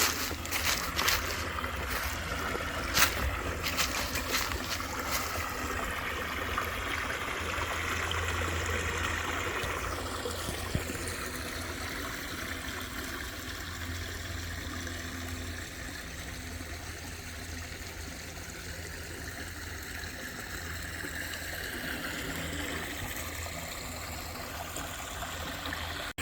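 A creek running: steady flowing water, with a few sharp clicks in the first few seconds.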